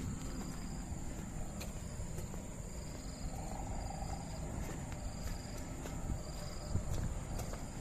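Footsteps on a dirt path and low rumbling handling noise on a handheld phone microphone while walking, with scattered light clicks.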